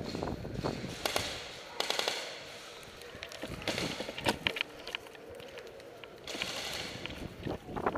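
Airsoft guns firing in several short bursts of rapid, sharp snapping shots, the busiest volley about four seconds in.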